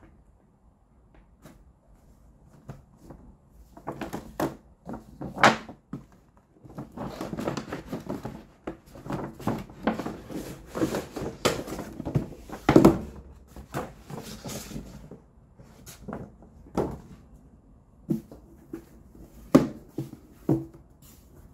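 Stiff paper shopping bag rustling and crinkling while a cardboard box is slid out of it, with sharp knocks and taps of box and bag against each other and the tabletop. The rustling is densest in the middle, the loudest knock comes about halfway through, and after that there are only scattered taps.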